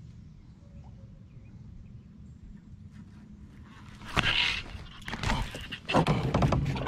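A hooked fish being fought on a baitcasting reel: loud bursts of splashing and reel-and-rod handling noise start about four seconds in, after a few seconds of only faint low water noise.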